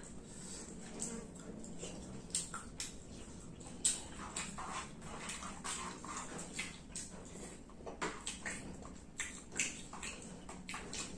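A person eating with the fingers: wet chewing and lip-smacking mixed with irregular small clicks of fingers picking food from a plate.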